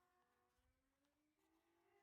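Near silence, with very faint background music.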